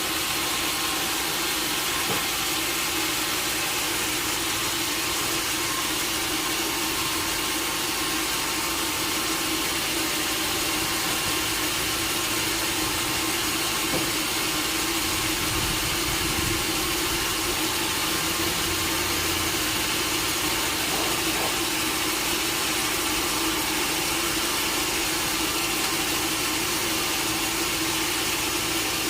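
Sawmill machinery running with a steady, even noise and a constant low drone.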